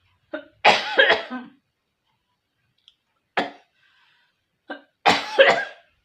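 A person coughing in fits while eating rich, greasy beef fat: a double cough about a second in, a single cough around the middle, and another double cough near the end.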